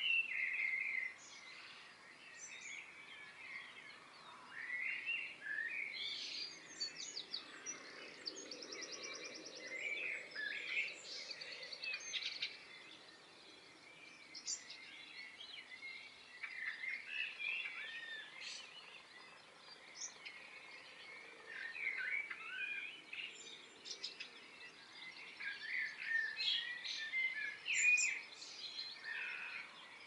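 Garden birds singing and chirping: varied warbled phrases and short chirps in bursts a few seconds apart, with a fast, evenly repeated trill near the start and again about seven seconds in.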